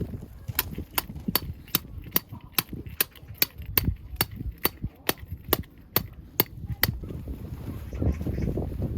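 A run of sharp, evenly spaced knocks, about two and a half a second, lasting some six seconds, over a low rumble.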